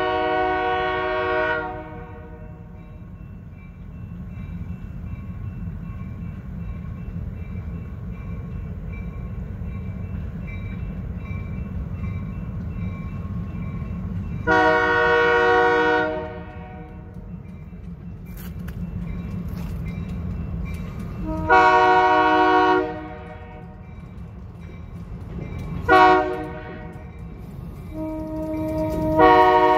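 Diesel locomotive air horn sounding a chord of several notes in the grade-crossing pattern: a blast that ends about two seconds in, then two long blasts, a short one and a final long one starting near the end. A steady low rumble runs underneath.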